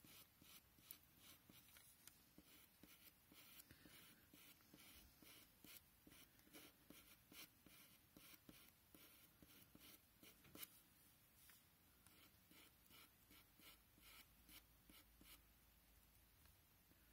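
Faint scratching of a pencil point on paper in short, quick strokes, a few a second and unevenly spaced, as fine hair lines are flicked in.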